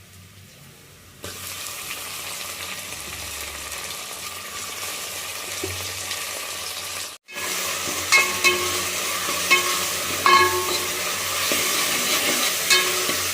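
Food frying and sizzling in hot oil in a pan, the sizzle starting about a second in. In the second half a metal spatula scrapes and clinks against the pan several times as the food is stirred.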